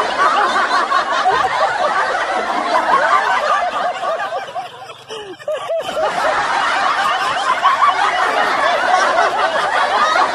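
Many people laughing and chuckling at once, a dense crowd laugh. It drops away briefly about halfway through and then picks up again.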